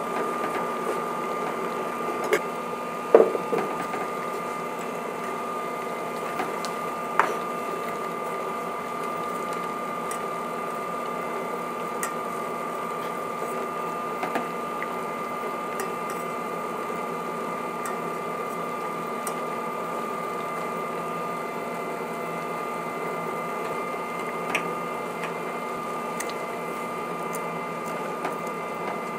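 Induction cooktop running under a stainless steel pot of simmering soup: a steady electrical hum with a constant high whine. A few light knocks of utensils against the pot, the loudest about three seconds in.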